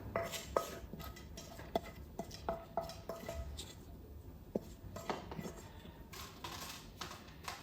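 Kitchen utensils clinking and tapping against dishes: a dozen or so scattered light knocks, some with a short metallic ring.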